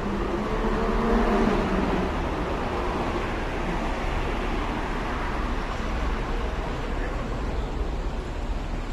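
Steady urban traffic rumble with a strong low wind-like noise on the microphone, and a short pitched sound in the first two seconds.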